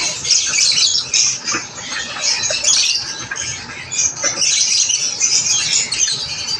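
Many lovebirds chattering and squawking at once: a dense, continuous run of high-pitched chirps and calls.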